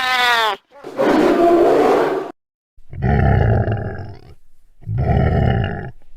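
Monster roar sound effect for a sewer beast: a short wailing cry that falls in pitch, then three harsh roars with short silences between them.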